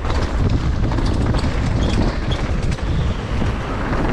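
Wind rushing over a GoPro's microphone while a mountain bike rides fast downhill. Many small knocks and rattles come from the bike over rough ground.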